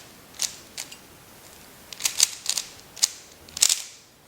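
Plastic 3x3 speed cube (MoYu Aolong) being turned by hand: quick clacking clicks of the layers snapping round, in short flurries about half a second in and again through the second half.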